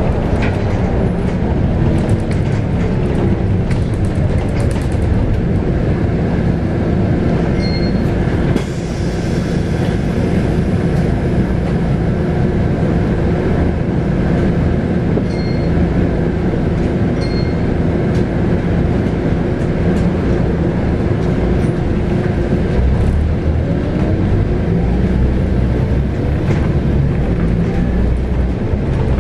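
Scania K280UB bus's 9.3-litre five-cylinder Scania DC9 diesel engine running under way, heard from inside the bus, with its pitch rising and falling as the bus accelerates and slows. A few short high beeps sound around a quarter and half way through.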